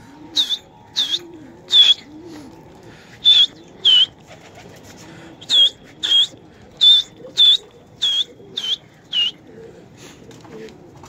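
About a dozen short, sharp, high whistles, many in quick pairs, sent up to pigeons flying overhead to keep the flock circling. Softer pigeon cooing repeats low underneath.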